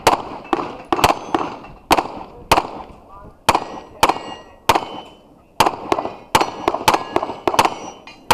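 Rapid pistol fire from a 9mm Sig Sauer P320 X5 Legion, about sixteen shots in quick strings, some in close pairs. Steel targets ring with a short metallic ping after many of the hits.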